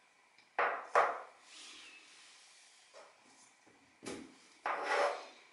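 Handling noises: two short scraping knocks about a second in, then a longer rough rubbing and knocking near the end, like things being picked up and moved.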